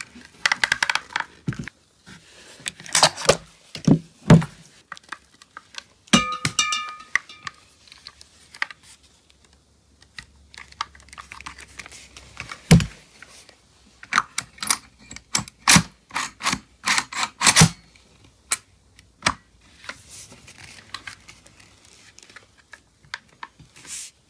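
Clicks and clacks of a gas airsoft M14 replica being handled and its controls worked, in irregular bursts, with a short ringing tone about six seconds in.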